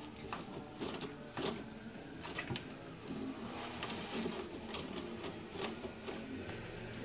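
Toilet paper rustling and tearing as a cat paws and pulls it off the roll, with irregular clicks and rattles from the roll turning on its holder.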